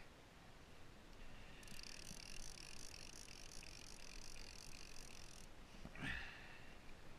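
Fishing reel's drag giving a faint, high buzz for about four seconds as a hooked blue shark pulls line off it, followed by a single knock about six seconds in.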